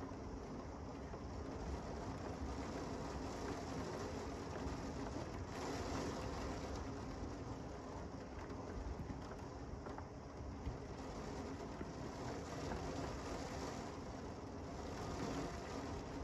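Steady moderate to heavy rain falling, an even hiss with a low rumble beneath it.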